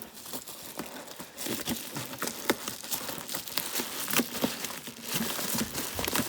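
Graphics-card packaging being handled and rummaged through: crinkling and rustling with many small clicks and crackles.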